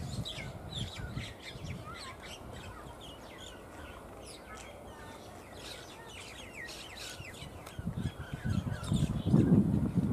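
Small birds chirping busily in many short, high notes, often falling in pitch. Louder low-pitched sounds come in over the last two seconds.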